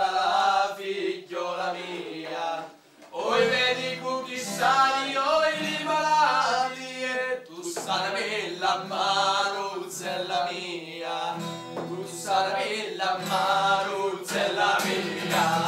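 Acoustic guitar played with men singing along.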